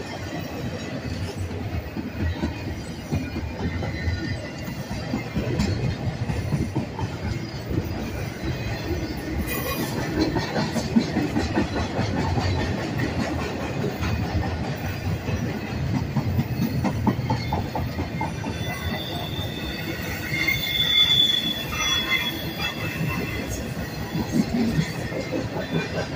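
A double-stack container train's well cars rolling past close by: a steady rumble with the clicking and clatter of wheels on the rails. A high wheel squeal comes in about twenty seconds in.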